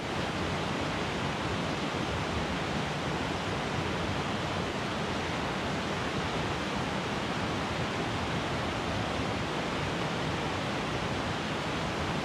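Mountain stream rushing steadily over rocks in white-water rapids.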